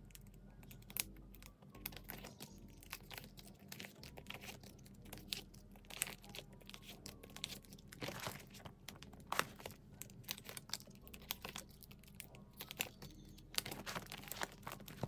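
Irregular soft crinkling and light clicks of plastic-sleeved photocards being slid out of binder pocket pages and stacked in the hand.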